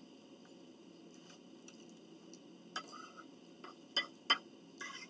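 Eating utensils clicking against dishes: a few sharp clinks about three and four seconds in, over a low steady room hum.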